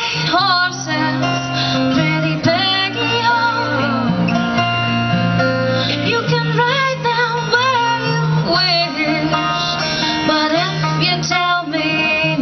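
Live bluegrass music: two acoustic guitars and a banjo playing, with women's voices singing over them.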